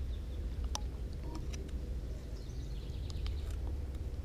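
Steady low wind rumble on an outdoor action-camera microphone, with a few faint sharp ticks scattered through it.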